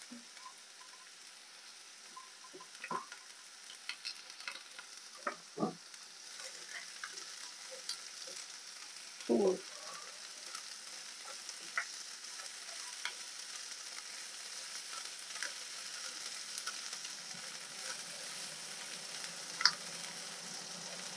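Shredded cabbage and carrot sizzling in a nonstick frying pan as they are stir-fried with a spatula. The sizzle slowly grows louder, with scattered scrapes and a few knocks of the spatula against the pan.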